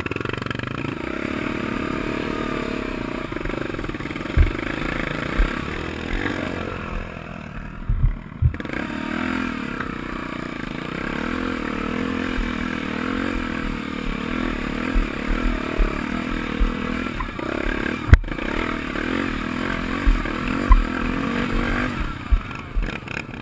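Honda XR 250 Tornado's single-cylinder four-stroke engine running under throttle on a steep, rutted dirt climb, its pitch rising and falling, easing off briefly about eight seconds in. Several sharp knocks of the bike jolting over the ruts.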